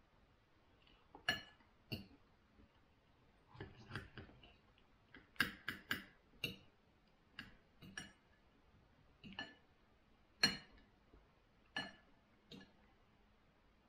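Knife and fork clinking against a plate while cutting and picking up food: about a dozen light, irregular clinks, several with a brief ring.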